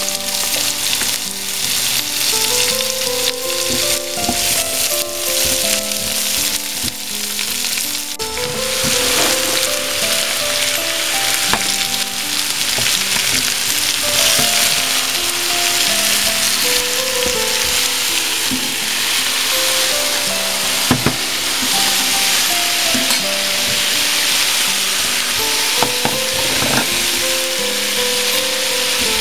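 Vegetables stir-frying in a hot nonstick pan: a steady sizzle that grows louder about eight seconds in, with spatula stirring and a couple of sharp knocks. Soft melodic background music plays underneath.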